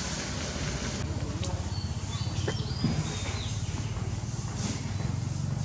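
A small engine running steadily with a low, fast-pulsing hum. A few short high chirps come about two to three seconds in.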